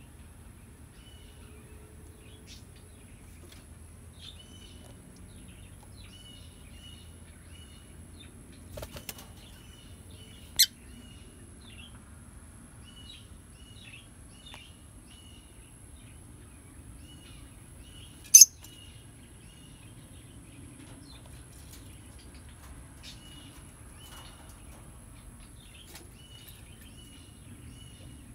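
Peach-faced lovebirds chirping, short high chirps repeating through the whole stretch. Two sharp, loud shrieks stand out, about ten and eighteen seconds in, with a brief flutter of wings just before the first.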